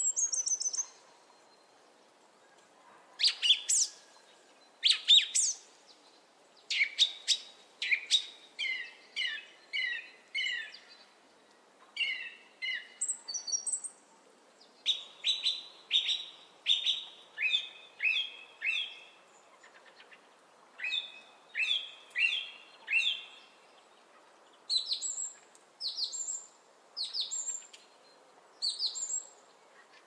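Songbirds chirping: a steady series of short, sharp calls, about one or two a second, many sliding down in pitch, with higher, thinner notes near the end.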